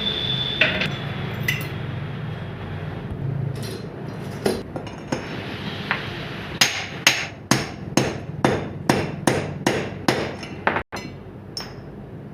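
Hammer blows on metal: a few scattered knocks, then a quick regular run of about ten strikes, two or three a second, ending about two seconds before the end. This is most likely the steering-head bearing cone set of a Hero HF Deluxe being hammered, the fix for a knocking handlebar.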